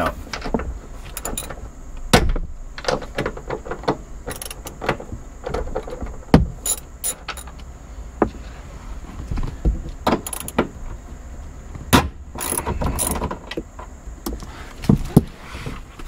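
Hand ratchet with an 18 mm socket loosening and backing out car seat-mounting bolts: irregular clicking of the ratchet and knocks of the tool on metal.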